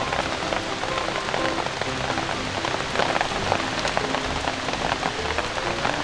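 Heavy rain falling steadily, with a dense scatter of sharp individual drop hits over an even hiss. Soft background music with short low notes plays underneath.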